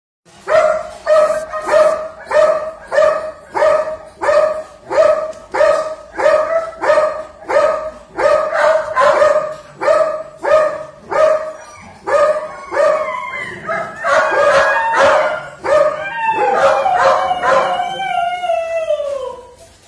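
A dog barking over and over at an even pace, about three barks every two seconds. About two-thirds of the way through, the barks give way to yelping and howling cries that fall in pitch, the last a long, falling howl.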